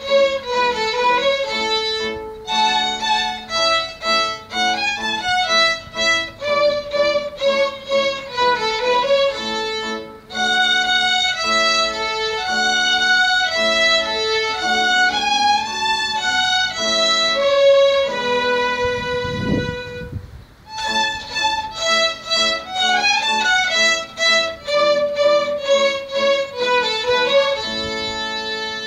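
A small ensemble of violins playing a tune together, note by note. About two-thirds through the melody slows on a held note under a brief low rumble, then picks up again and comes to rest on a long held note near the end.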